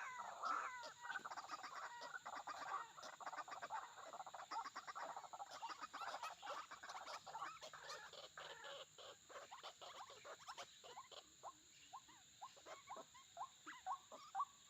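White-breasted waterhens calling: a rapid, dense run of short croaking calls that thins out toward the end into separate calls, over a steady high hum of insects.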